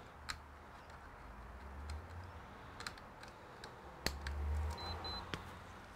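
Sparse faint clicks and light knocks of hands working on a workbench, with dull handling thuds, and two short faint high beeps about five seconds in.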